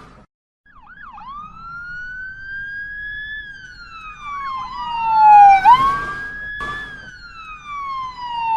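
Ambulance siren wailing, its pitch sweeping slowly up and then slowly down before snapping back up to start the next cycle. It grows louder to a peak about five seconds in and again near the end, with a short click about seven seconds in.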